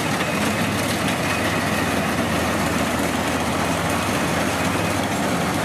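Rice combine harvester running at work: a steady engine hum under the noise of its threshing machinery.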